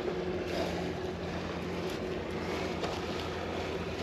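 Canal barge's diesel engine running with a steady low drone.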